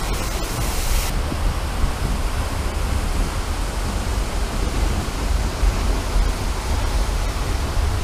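Seljalandsfoss waterfall crashing into its plunge pool: a steady, loud rush of falling water with a deep rumble. A bright hiss on top cuts off suddenly about a second in, leaving a duller rush.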